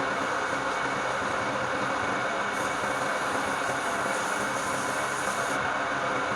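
Wood lathe running steadily with a continuous machine drone. From about two and a half seconds in, a higher hiss joins for some three seconds, then stops.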